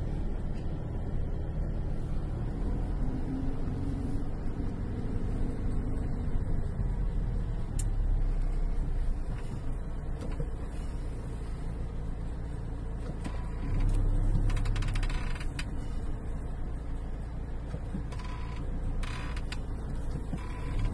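Engine and road noise of a car driving in slow traffic, heard from inside the cabin: a steady low rumble that grows louder for a couple of seconds about 14 seconds in.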